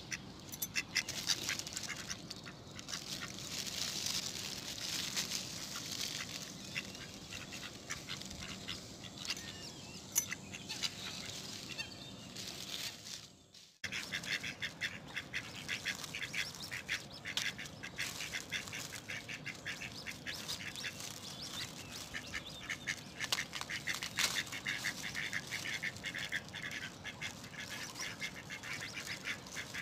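Mallard ducks quacking and calling on the water, in dense, busy bursts. The sound cuts out briefly about halfway through, then the calling resumes.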